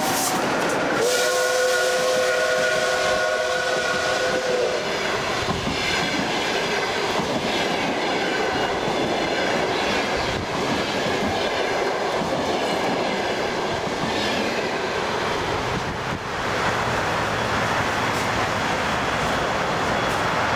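Steam locomotive's whistle sounding a chord of steady tones for about three and a half seconds, starting about a second in, as L-class locomotive L-5248 passes close by. After it the passenger coaches roll past with a rhythmic clickety-clack of wheels over the rail joints.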